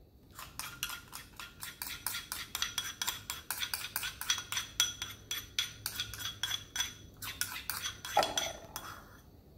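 A small spatula scraping and knocking against the inside of a ceramic bowl as melted butter is scraped out, a quick run of clicks about four or five a second with a light ring from the bowl.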